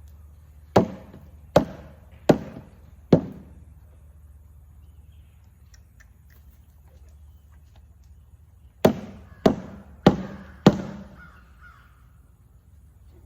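Loud sharp bangs in two runs of four, each bang evenly spaced and ringing briefly, with a pause of several seconds between the runs.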